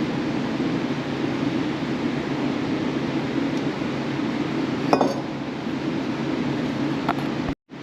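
Sheet metal clinking: one sharp metallic clink about five seconds in and a lighter one near seven seconds, over a steady rushing background noise. The sound cuts off abruptly just before the end.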